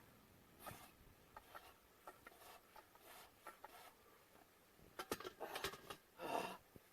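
Near silence with faint scattered clicks and rubbing, then a quick run of handling clicks and one heavy exhale near the end, from a man out of breath after a long bench press set.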